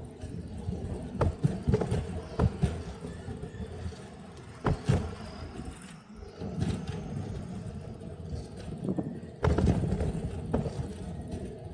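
Bicycle riding recorded on an Insta360 X3's own microphones: a steady low rumble of tyres and wind on the microphone, with scattered sharp clicks and knocks from the bike going over bumps.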